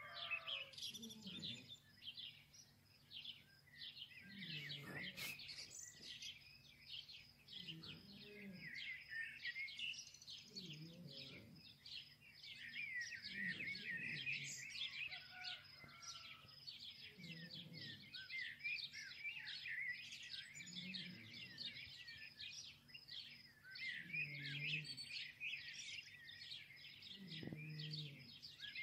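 Many small birds chirping and twittering continuously, with a low sound repeating about every three seconds underneath.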